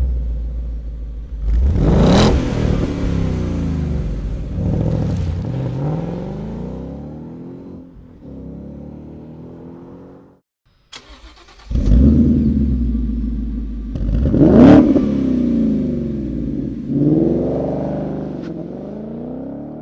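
A 2015–2017 Ford Mustang GT's 5.0-litre V8 on its stock exhaust, revving and pulling away with the pitch rising and falling. After a short break, the same car on a Borla Touring cat-back exhaust does the same, louder near its peak about three-quarters of the way through.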